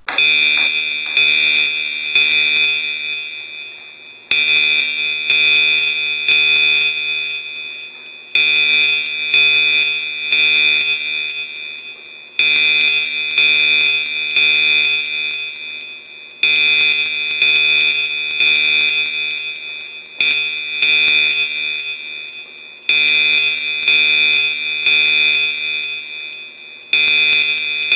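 Security system's electronic alarm, the 'Red Alert' warning, sounding from a loudspeaker as a deterrent to an intruder. A loud, steady, shrill tone restarts about every four seconds and fades a little before each restart.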